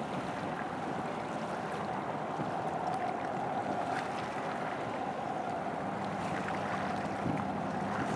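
Wind and choppy sea water washing, with a faint steady engine hum underneath.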